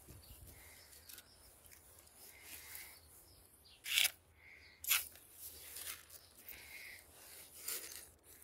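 Short scrapes and crinkles as white cement is squeezed from a plastic bag into stone wall joints and worked with a small metal trowel; two sharp scrapes stand out about four and five seconds in.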